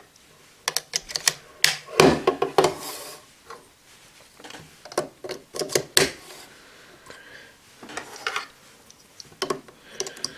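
Plastic clicks and clatter of small toy Ryusoul pieces being slid and snapped into the holders of a Ryusoul Buckle G toy belt, a run of irregular sharp clicks with brief rubbing between them.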